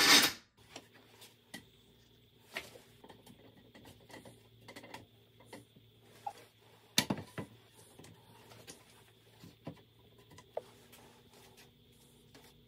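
Loud workshop noise cuts off abruptly at the start, followed by quiet handling sounds: scattered knocks and clicks as solid birch tread blanks are set into metal bench clamps, with one sharp wooden knock about halfway through.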